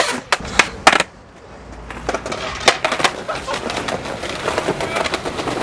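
Skateboard clacks: three sharp snaps of the board's tail and deck on pavement in the first second, two more nearly three seconds in, then the wheels rolling over paving with small knocks.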